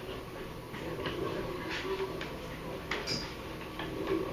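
Classroom room noise: a faint murmur of voices with scattered light clicks and taps, and one sharper click about three seconds in.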